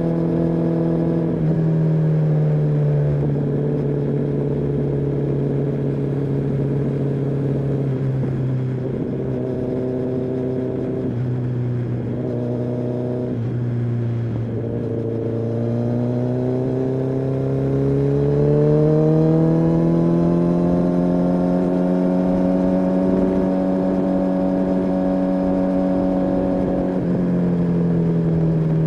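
Kawasaki ZX-10R's inline-four engine running under way. Its pitch drops about a second and a half in and stays low for a while, climbs smoothly past the middle and holds steady, then falls again near the end.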